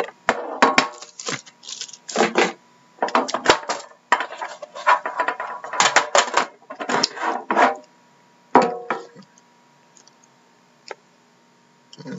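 Plastic wrapping crinkling and a cardboard trading-card box being handled, slid and knocked, in a run of short bursts over the first eight seconds. It then goes quiet apart from one small click near the end.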